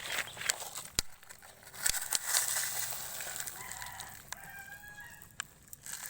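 A rooster crowing once, starting a little past halfway through, over a steady crackling hiss with scattered sharp clicks.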